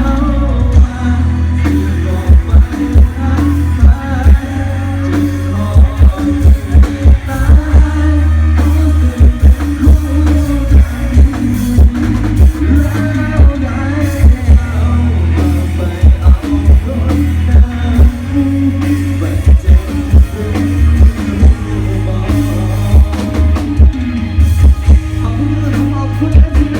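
Live band music played over a Thai rot hae parade sound truck's loudspeakers: a singer over heavy, booming bass and loud repeated kick-drum thumps.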